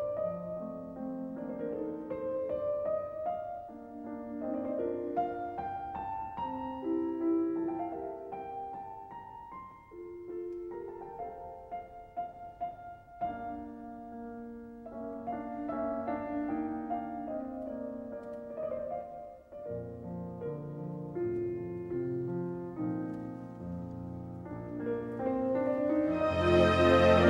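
Background music: a slow piano piece playing a melody of single held notes, swelling louder and fuller near the end.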